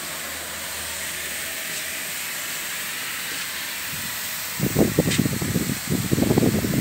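A steady hiss. About two-thirds of the way through, a much louder, irregular low rumble of air buffeting the microphone starts and keeps going.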